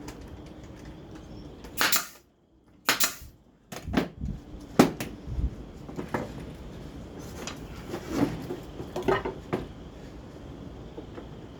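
Wooden pieces knocking and clattering as they are handled and set down on the workbench. About four sharp knocks come in the first five seconds, then a scatter of lighter clatters.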